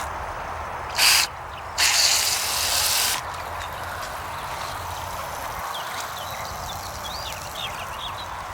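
Coil cleaner sprayer hissing as it sprays foaming non-acid coil cleaner onto a dehumidifier's evaporator coil: a short spray about a second in, then a longer spray of about a second and a half.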